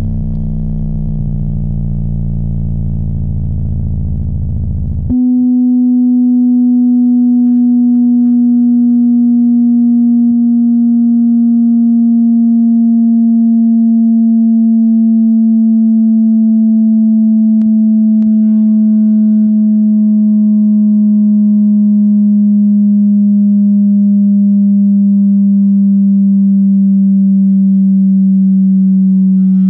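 A subwoofer plays bass-heavy music for about five seconds, then switches abruptly to a loud, steady test tone that slowly glides down in pitch from about 250 Hz to about 190 Hz, with faint higher overtones. A couple of faint clicks come about halfway through.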